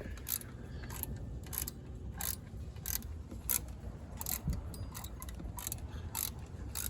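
Irregular metallic clicks and ticks of hand tools working on the truck's engine, about one or two a second, over a low steady rumble.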